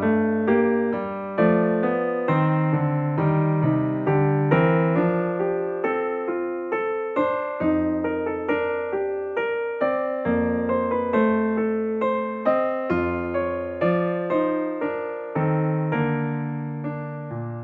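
Background music: electric piano playing a gentle melody and chords, several struck notes a second.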